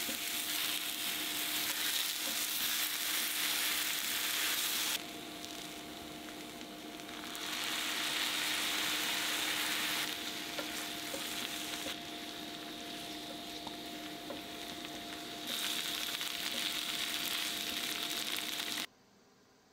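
Salmon, sliced potatoes and shimeji mushrooms sizzling in melting butter in a frying pan as they are stir-fried together. The sizzle drops and swells a few times over a faint steady hum, and cuts off suddenly shortly before the end.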